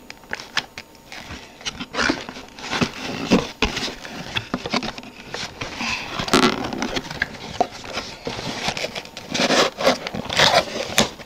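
Cardboard box and plastic packaging being handled, with rustling, scraping and irregular clicks and knocks.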